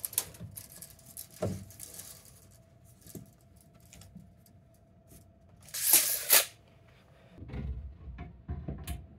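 Hands working a tape measure and a metal meter base against a plywood wall: scattered light clicks and rustles, a short loud scraping rush about six seconds in, then a few low knocks as the box is set against the wall.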